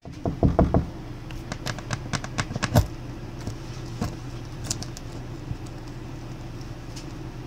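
Knocks, taps and rattles as a propane line is pushed up through a freshly drilled hole in the floor, thickest in the first three seconds and then a few scattered clicks, over a steady low hum.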